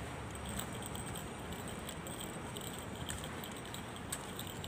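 Faint, steady street background noise with a low rumble and a few scattered faint clicks.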